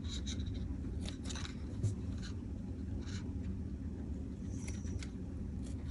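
Scissors cutting a strip of chiffon fabric: a few soft, irregular snips and rustles over a low steady hum.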